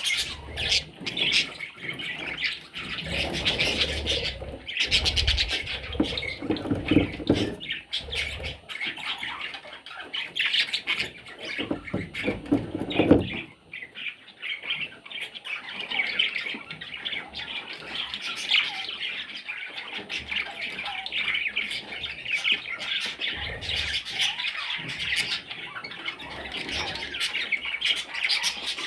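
Budgerigars, chicks among them, chirping and squawking in continuous chatter, with rustling and thumps of movement through the first half, the loudest knock about thirteen seconds in.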